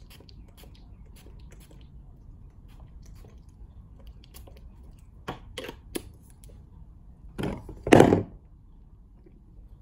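A few short hisses from a pump-spray mist bottle, followed by handling knocks close to the microphone about eight seconds in, the loudest sound.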